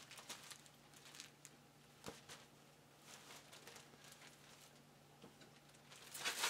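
Quiet handling sounds of fabric oven mitts and packaging: faint rustles and a soft click about two seconds in, over a low steady hum. Near the end, plastic wrapping begins to crinkle.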